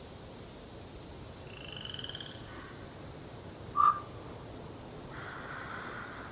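Forest birds calling in a quiet background: a short trill about two seconds in, then one loud, abrupt call just before four seconds, and a rougher, buzzy call near the end.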